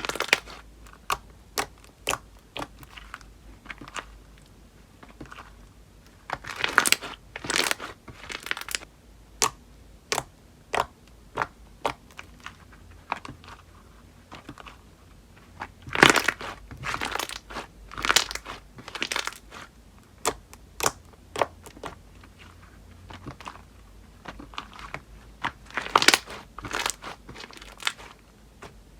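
Slime being squeezed, poked and stretched by hand, giving sharp clicks and pops at irregular intervals, in clusters with quieter stretches between.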